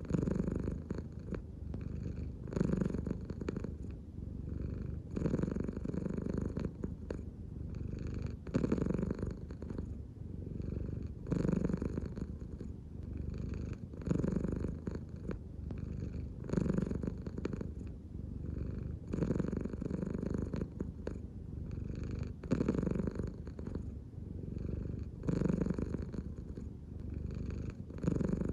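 American Shorthair cat purring continuously, the purr swelling and fading with each breath about every three seconds.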